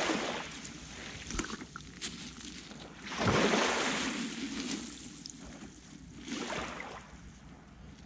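Sea waves washing onto the shore in three swells of surf a few seconds apart; the second, about three seconds in, is the loudest.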